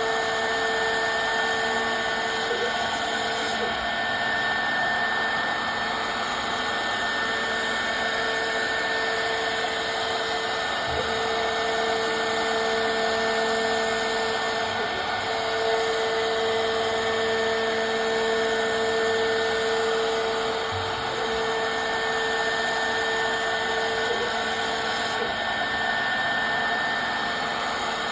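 Custom-built CNC machine running, its spindle giving a steady whine over a constant rushing noise, with a few faint knocks along the way.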